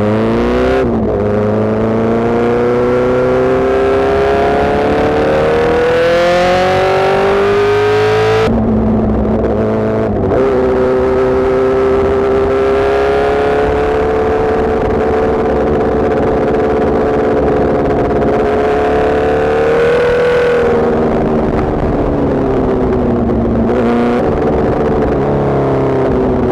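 A sport motorcycle's engine running at speed, with wind rushing over the microphone. It climbs steadily in revs, shifts up twice about eight and ten seconds in, holds a steady cruise, and then eases off with falling revs about twenty seconds in.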